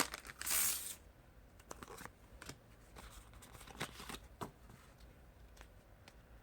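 Foil booster pack wrapper torn open and crinkled for about the first second, then faint scattered ticks of trading cards being handled.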